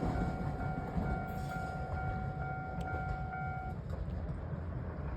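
Railway level-crossing warning bell ringing in a steady beat of about two strokes a second over a low fading rumble, then cutting off about three and a half seconds in as the crossing clears after the train has passed.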